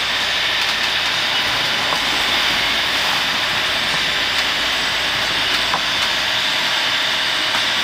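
Strong wind, gusting to 40 knots, and rushing sea around a sailing yacht heeled hard under sail: a loud, steady hiss.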